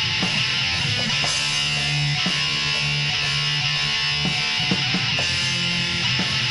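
Black metal music: distorted electric guitars forming a dense, steady wall of sound.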